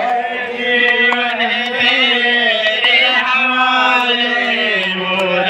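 A man singing a Hindi devotional bhajan into a handheld microphone, holding long notes that slide in pitch.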